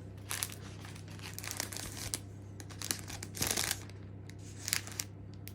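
Plastic food packet crinkling as it is handled, in several short irregular bursts over a low steady hum.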